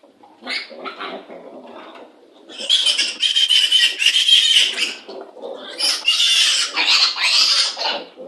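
Piglets squealing: a few short, softer squeaks, then two long, loud, shrill squeals, the first starting about two and a half seconds in and the second about six seconds in.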